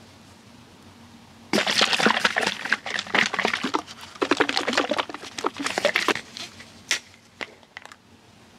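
Plastic bottle of drinkable yogurt shaken close to the microphone: a dense crackling slosh of liquid and plastic for about five seconds, followed by a couple of sharp clicks from the bottle's plastic cap.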